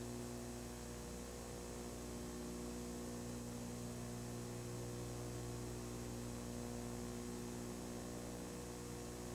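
Steady electrical mains hum, a low buzz with a stack of even overtones, over faint hiss; nothing else sounds.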